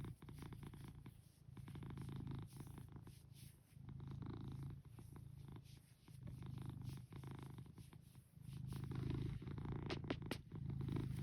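A cat purring close to the microphone, the purr swelling and fading with each breath in and out, about every one and a half to two seconds. A few faint clicks about ten seconds in.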